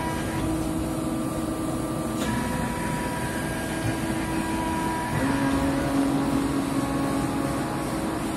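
1985 Netstal plastic injection moulding machine running: a steady hydraulic hum with several held tones whose pitch shifts about two seconds in and again about five seconds in, getting a little louder at the second change, as the machine moves through its moulding cycle.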